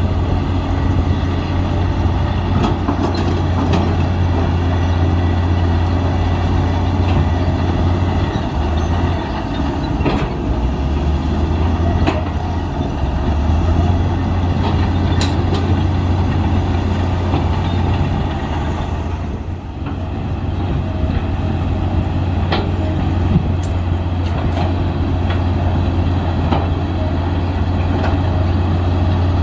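Heavy diesel engine of a Komatsu D53P crawler bulldozer running steadily under work, with scattered metallic clanks and knocks. The engine eases off briefly about two-thirds of the way through.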